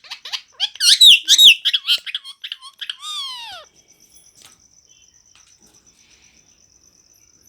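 Pet parrot calling in a fast series of loud, high chirps and squawks, ending about three seconds in with one long falling screech. After that only a faint, steady, high insect trill remains.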